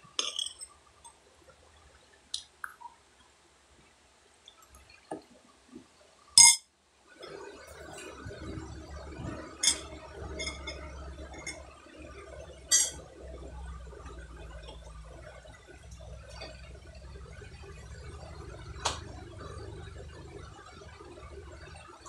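Wet chewing and lip-smacking of a child eating grilled chicken inasal with his fingers, with a few sharp clicks. From about seven seconds in a steady low hum runs underneath.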